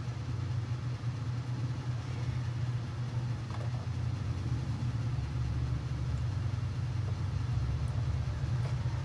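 Steady low mechanical hum, with a few faint light clicks.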